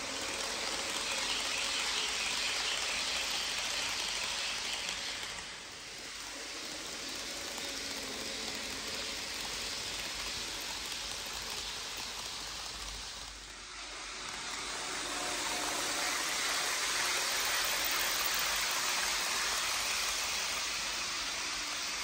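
HO scale model trains rolling along the track: a steady rushing hiss of metal wheels on rail with a faint motor hum. It dips briefly about six seconds in and again near fourteen seconds, then swells back.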